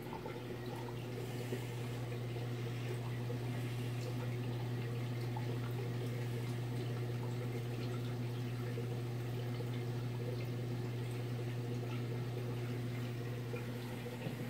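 Nano reef aquarium's pump and powerhead running with a steady low hum, over a constant trickle and bubble of circulating water.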